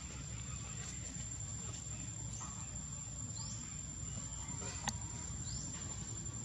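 Outdoor ambience: a steady high insect drone over a low rumble, with two short rising chirps about three and five and a half seconds in and a single sharp click just before the second chirp.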